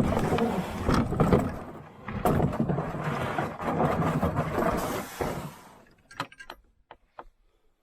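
Canoe hull dragged over the ground, scraping and sliding in two long pulls. It stops about five and a half seconds in, leaving a few faint knocks.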